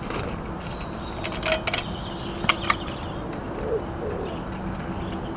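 A steady rushing background noise with a few sharp clicks, and a bird calling briefly a little past halfway.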